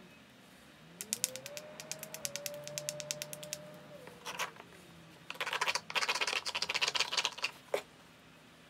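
A hammerstone scraped and tapped along the edge of a small flint biface, stone on stone: a quick run of sharp clicks, then a denser stretch of scratching clicks, and one last sharp click near the end. This is edge abrading, grinding the biface edge to prepare striking platforms.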